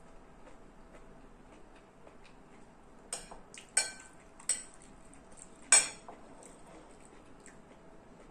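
Metal spoon and fork clinking against a china rice bowl while eating: four sharp, ringing clinks about three to six seconds in, the last the loudest.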